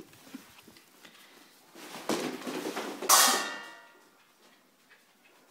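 A dog's fetch ball game on a wooden floor: a sharp click at the start, then about two seconds in a second of scuffing and scrabbling, ending in a loud knock that rings briefly before dying away.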